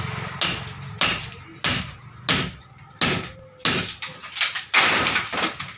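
Hammer striking a reinforced-concrete ceiling slab, about nine sharp blows in quick succession, chipping off old plaster and spalled concrete. Crumbling noise follows the blows and runs longer near the end.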